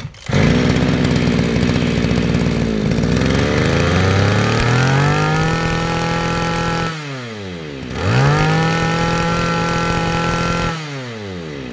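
Komatsu BC2300 brushcutter's 23cc two-stroke engine, just started, idling and then revved twice: the pitch climbs to full throttle, holds for a couple of seconds and falls back toward idle, about midway and again near the end.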